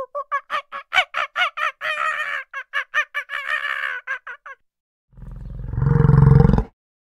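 Langurs calling in a fast run of short, pitched cries, about four or five a second, which stops about four and a half seconds in. About five seconds in comes a deep bellow from a large bovine, growing louder for about a second and a half before it cuts off.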